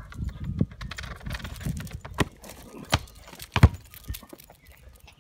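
Border collie's paws clicking on asphalt while it pushes a basketball along, with light jingling and three sharp thumps in the middle, the last the loudest.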